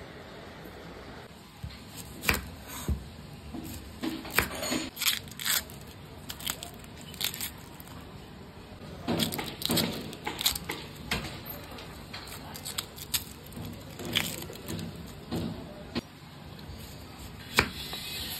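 Irregular crackles, clicks and knocks of onions being handled and prepared by hand, at uneven intervals, with a few sharper knocks among them.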